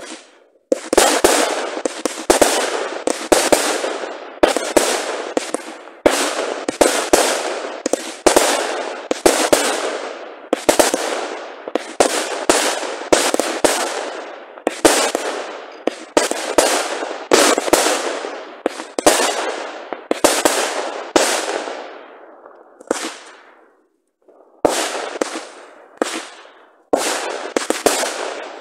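Fireworks batteries firing a rapid string of loud bangs, about one or two a second, each dying away over a fraction of a second. A short lull comes a few seconds before the end, then the bangs resume.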